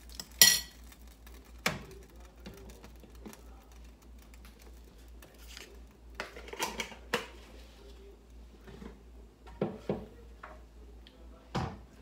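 Cookware clatter at a gas stove: a sharp metallic clank with a brief ring about half a second in, then scattered knocks and clinks of a utensil and a glass pot lid against the frying pan, over a low steady hum.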